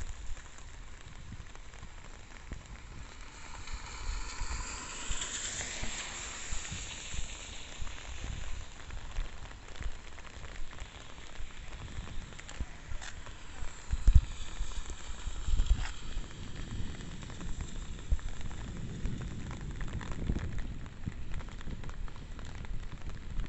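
Steady rain falling, a continuous hiss. A louder swishing hiss swells and fades about four to eight seconds in, and two sharp low knocks about halfway through are the loudest sounds.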